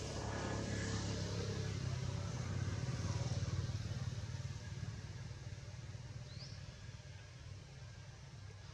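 A motor vehicle's engine passing by off-screen: a low, steady hum that grows louder over the first few seconds and then fades away. A bird gives one short, high rising chirp about six seconds in.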